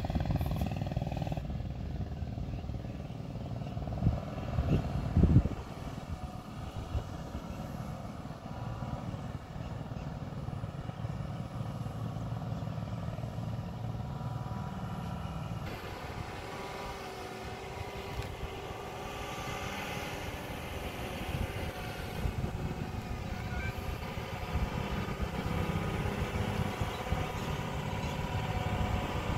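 Fully loaded TATA lorry's diesel engine running as it drives up a mud road, growing louder in the second half as it approaches. A low rumble runs underneath, with a couple of thumps about four and five seconds in.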